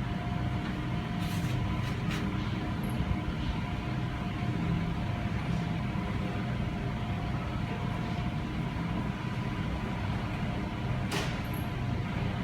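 Steady low background rumble with a faint hum and a few light clicks.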